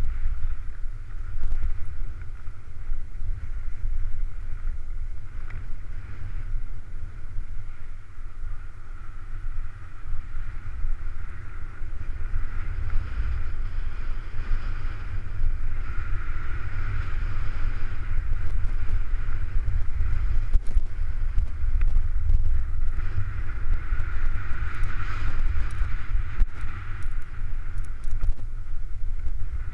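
Wind buffeting the microphone of a body-worn action camera during a fast downhill run on snow: a heavy, steady rumble. Over it runs the hiss of edges sliding and carving on groomed snow, swelling now and then.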